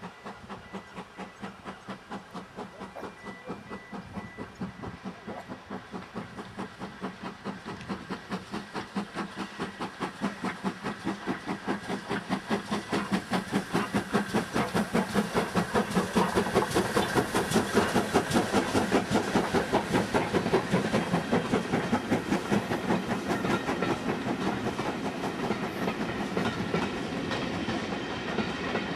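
GWR prairie tank steam locomotive working a passenger train, its rhythmic exhaust beats growing steadily louder as it approaches and passes. Near the end the beats give way to the rumble and clickety-clack of the coaches' wheels over the rail joints.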